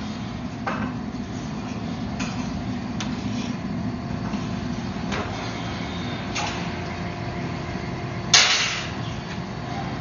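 Steady hum of running shop machinery, with scattered light metal clinks and one sharp, loud metal clank about eight seconds in.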